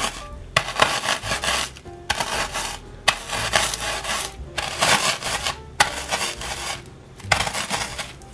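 Ceramic mug rolled back and forth over crisp ladyfinger cookies in a zip-top plastic bag, crushing them to crumbs: a rasping crunch with each pass, about one pass a second.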